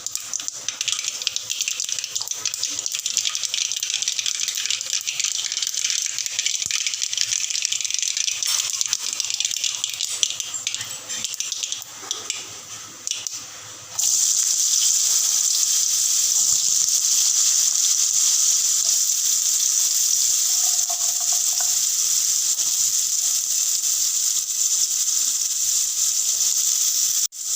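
Chopped potatoes sizzling and crackling in hot oil on high heat, just after going into the pan with spluttered mustard seeds. About halfway through the sound jumps to a louder, steadier hiss.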